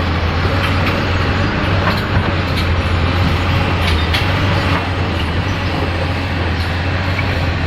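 Hyundai excavator's diesel engine running steadily with a constant low drone, a few faint clicks over it.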